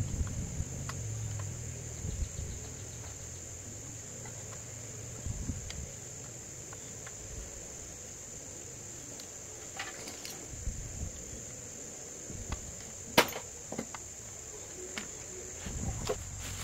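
Insects chirring steadily at a high pitch, with scattered light knocks and clicks and one sharper click about three-quarters of the way through.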